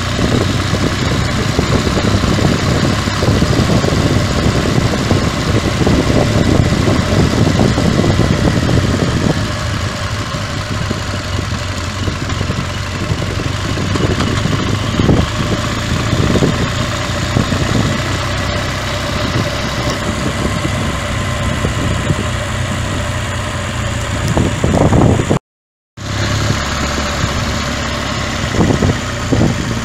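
Motorcycle engine running at road speed under steady wind rush on the microphone. The sound cuts out for about half a second near the end.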